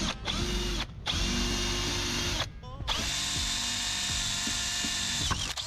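Power drill with a long twist bit running in three bursts, the last the longest, with short stops between, as holes are drilled into a sailboat's fiberglass keel and rudder to let out water trapped inside.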